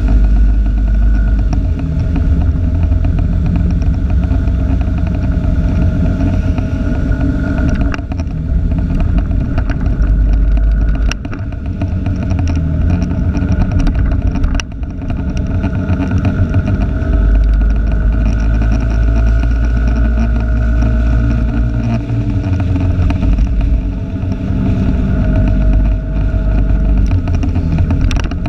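Vehicle engine and road noise on the move, picked up by a camera clipped to the rear-view mirror, with a heavy low rumble that rises and falls.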